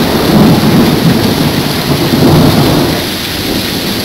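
Heavy rain and strong gusting wind of a severe thunderstorm squall line, loud and low-pitched in surges, easing a little about three seconds in.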